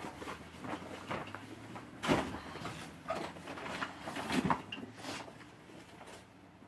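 Irregular rustling and knocking of hands unpacking and handling an item, loudest about two seconds in and again a little after four seconds.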